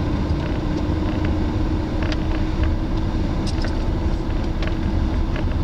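Car cabin noise while driving slowly: a steady low rumble of engine and tyres with a faint steady hum, and scattered light ticks.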